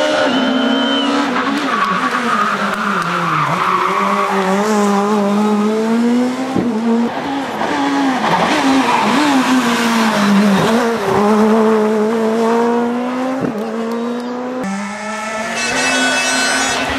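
Škoda Fabia S2000 rally car's engine revving hard, its pitch climbing and dropping again and again through gear changes and lifts, with tyre squeal in the corners. The sound changes abruptly near the end as another pass of the car begins.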